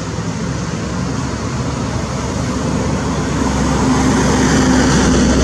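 Road traffic noise: a motor vehicle's engine running, growing louder over the last couple of seconds as it draws near.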